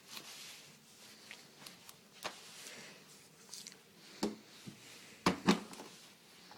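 Daewoo DWDM301WP washing machine early in its final spin programme: a faint hiss with scattered knocks and clicks from the drum, the loudest two close together near the end. No steady spin hum yet.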